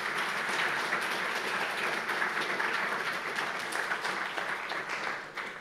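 Audience applauding: many hands clapping steadily, dying away near the end.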